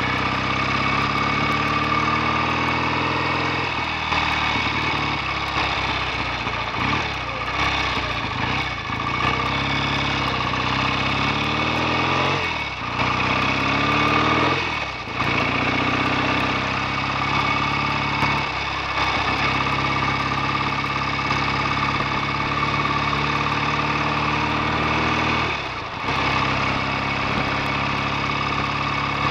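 BSA A65 650 parallel-twin engine running on the road, its pitch rising in several sweeps as it accelerates, with short dips where the revs drop between gears.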